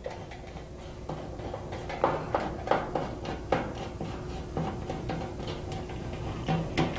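Nut driver unscrewing a bolt from a chiller's sheet-metal bottom panel: irregular light metallic clicks and scrapes, about eight or nine of them, over a faint steady hum.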